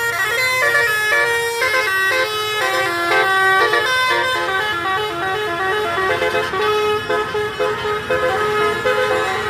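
Multi-tone telolet bus air horns playing a tune together, a stepping melody of short, bright notes that change several times a second.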